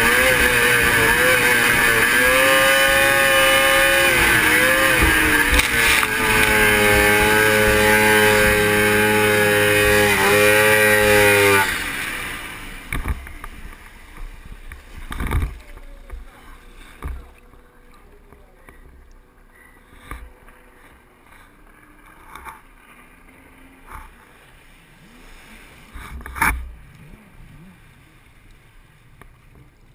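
Polaris 600 two-stroke watercross snowmobile engine running hard, its pitch wavering, then cutting out about twelve seconds in as the sled stops on the water and starts to sink. After that there is only quiet water sloshing with a few scattered splashes.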